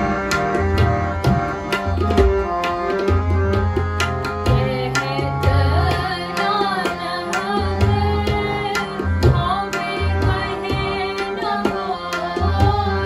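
Gurbani kirtan: two Yamuna harmoniums hold steady chords while a tabla plays a steady rhythm, the bayan's deep bass strokes under the sharp dayan strokes. Two women's voices join in singing about five seconds in.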